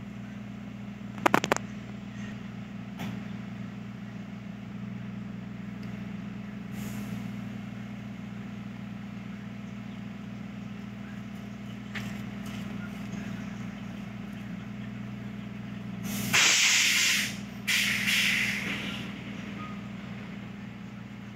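Steady low mechanical hum, with a brief sharp clatter about a second in and two loud hissing bursts, each a second or so long, about three-quarters of the way through.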